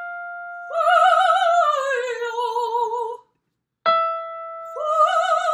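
A woman singing a descending vocalise with operatic vibrato, given her starting pitch by a single piano note. She enters on the note, swells slightly, then slides down through a short falling figure as a middle-voice exercise. After a brief pause the piano note sounds again and she begins the same pattern a second time.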